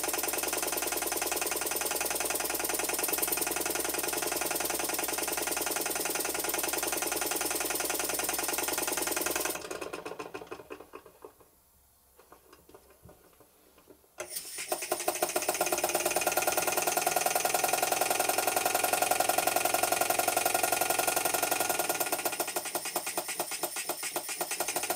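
Vintage toy steam engine running fast on compressed air with a rapid, even beat. About ten seconds in the air is shut off and the engine runs down to a stop. After a few seconds of near silence, while the crankshaft is turned over to reverse the slip-eccentric valve gear, it starts again abruptly and runs on in the opposite direction.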